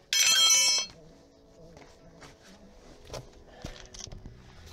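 A short, loud metallic clang that rings for under a second, then a few light metal clicks: the steel crank handle of a car's scissor jack being handled against the jack after a wheel change.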